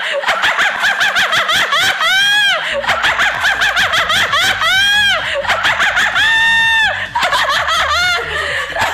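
A woman laughing hard in high-pitched fits, each rising and then falling in pitch, with a rapid pulsing 'ha-ha' rhythm.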